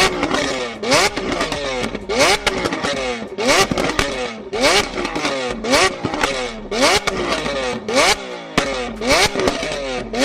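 A performance engine revved in quick, repeated throttle blips about once a second. Each rev shoots up and falls away, with loud pops and crackles from the exhaust as the revs drop.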